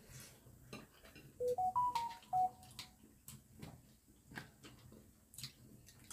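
A short electronic notification chime of several pure notes, climbing and then falling back, about a second and a half in. Quiet clicks and taps of eating with a fork are heard around it.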